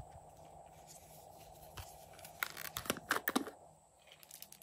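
Small plastic container tipped and tapped over a glass baking dish of slime, scattering sequins, glitter and foam shapes: a quick cluster of sharp clicks and crackles about halfway through, and a few lighter ticks near the end, over a faint steady hiss.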